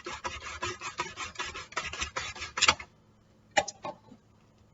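Onion being pushed back and forth across a mandoline slicer's blade in a spiked hand guard, making quick repeated rasping slicing strokes. The strokes end about three seconds in with a sharper knock, followed by two light clicks.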